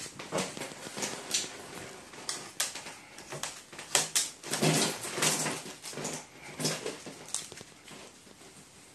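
A crow tearing and tugging at a water-soaked paper balloon with its beak: a busy run of irregular paper rustles and sharp taps, loudest around the middle and dying away near the end.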